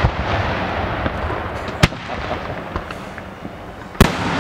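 Aerial fireworks shells bursting in the sky: two sharp bangs, about two seconds in and near the end, with a few smaller pops between them.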